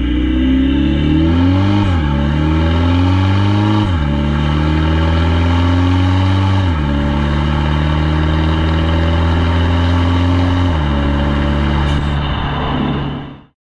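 Modified exhaust of a VW Tiguan 2.0 TDI four-cylinder diesel with a DSG dual-clutch gearbox, accelerating through four quick upshifts. The revs rise and then drop sharply at each shift, and each gear is held longer with a slower rise. The sound cuts off suddenly near the end.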